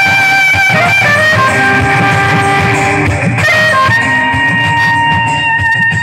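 Loud music: a held melody line that slides between notes, over a busy, steady beat.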